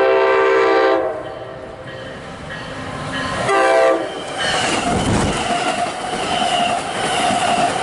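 MARC commuter train sounding its horn, a long blast that ends about a second in and a short one about three and a half seconds in, then the train passing close by, its wheels clattering over the rail joints under a steady whine.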